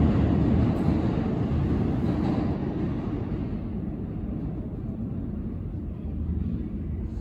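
Subway train rumbling on the rails and fading steadily as it pulls away, its higher noise dying out first.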